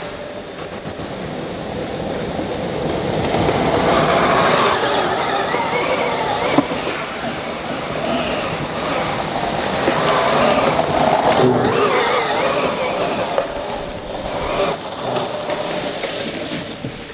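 A 1:5 scale electric RC rally car runs on dry dirt. Its 2200 brushless motor and all-steel gears whine, swelling and fading as it accelerates and lets off, over the scrabble of hard tyres sliding on the dirt, with one sharp knock about six and a half seconds in.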